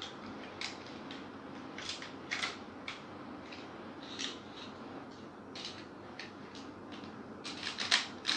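Plastic clicks and rattles of a black toy pistol being handled: scattered single clicks, then a quick run of louder clicks near the end.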